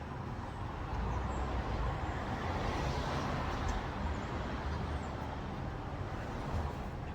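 Road traffic noise: a steady rush and low rumble that swells about a second in and fades again, as of a vehicle passing.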